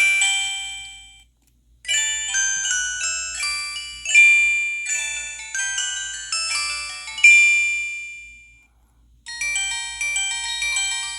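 Downloaded ringtone playing on a Samsung SGH-T629 phone: a melody of quick, high notes with no bass. It breaks off twice for a moment, about a second in and again near the end, then starts again.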